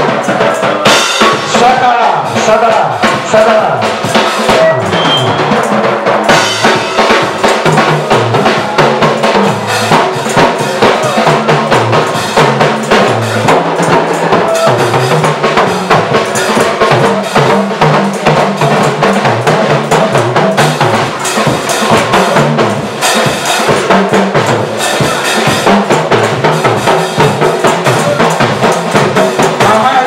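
Music with a drum kit playing a fast, steady beat over a bass line that steps up and down.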